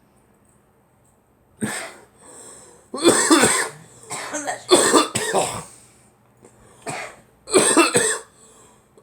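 A girl coughing in a fit: after a short quiet start, a single cough, then several bouts of two or three coughs in quick succession.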